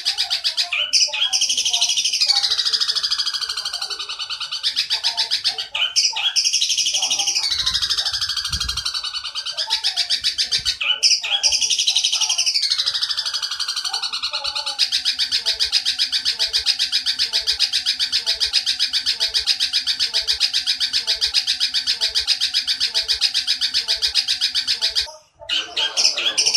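Birdsong training recording: a harsh call phrase that sweeps down and then up, heard three times, followed by about ten seconds of fast, unbroken rattling chatter, the long 'nyerecet' chatter of a Eurasian tree sparrow, which breaks off briefly near the end.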